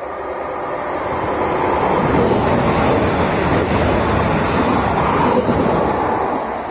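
Greater Anglia Class 755 bi-mode train passing close by along the platform: its rumble and wheel noise build up as it approaches, are loudest for a few seconds as it goes by, then fade away.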